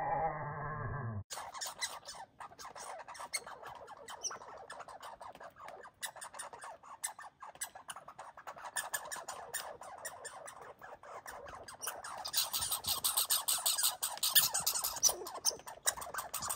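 Red squirrel foraging in birdseed close to the microphone, with rapid, fine crunching clicks of seed being handled and chewed. The clicking grows denser and louder about twelve seconds in.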